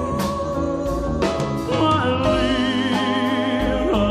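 Live band playing a slow ballad, with keyboards, guitars, bass and drums under a singer's held, wavering notes.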